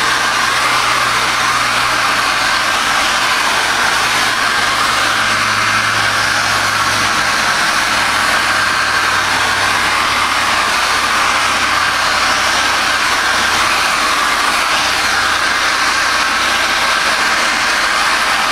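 Handheld hair dryer running steadily, blowing air onto a sheet of coated paper to dry it.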